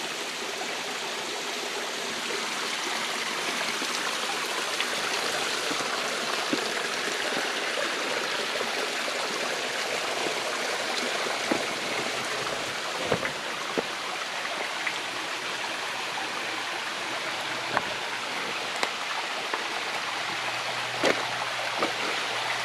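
Creek water rushing steadily over rocks and small cascades, with a few sharp knocks scattered through the second half.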